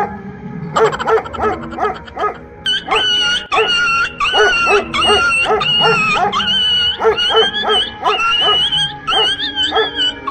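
A dog barking over and over, about twice a second, mixed with background music whose high wavering melody comes in about three seconds in.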